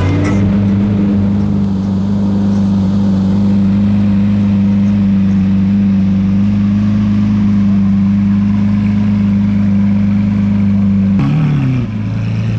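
Lamborghini Aventador's V12 engine held at a loud, steady note for about eleven seconds. Near the end the revs drop and waver.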